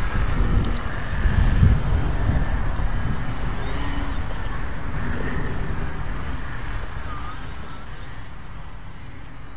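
Wind buffeting the microphone as a heavy, uneven rumble, strongest about one to two seconds in and easing off towards the end. Above it is a faint thin whine from the foam RC plane's electric motor and propeller.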